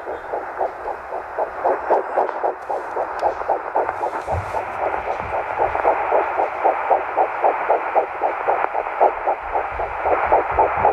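Fetal Doppler picking up a Great Dane puppy's heartbeat in the womb: fast, regular whooshing pulses, several a second, over the Doppler speaker's steady hiss.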